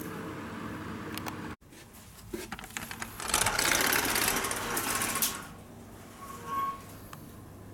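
A steady hiss cuts off sharply about a second and a half in. After a few clicks, a sliding glass balcony door is rolled open with a loud, fast rattle lasting about two seconds, followed by a few light knocks.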